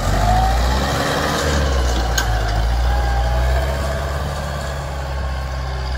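Kubota farm tractor's diesel engine running steadily with a low drone.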